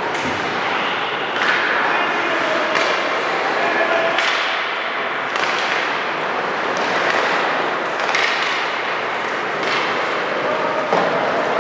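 Ice hockey play echoing in an arena: a string of sharp clacks of sticks and puck, about one every second and a half, over a steady din with players' shouts.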